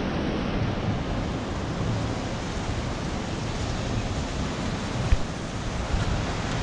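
Steady rush of wind on the microphone mixed with ocean surf breaking along the beach, with a single sharp knock about five seconds in.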